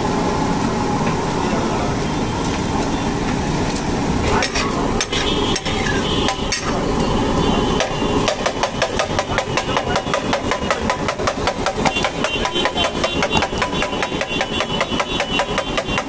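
Flat metal spatula striking and scraping a large flat griddle (tawa) in a fast, steady rhythm of about four strokes a second, chopping and mashing pav bhaji; this starts about halfway through. Before it, softer mashing of the bhaji over steady street noise.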